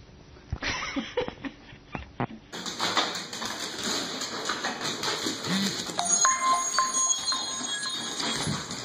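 A few short, sharp sounds in the first two seconds, then music with electronic beeping tones over busy background noise from about two and a half seconds in.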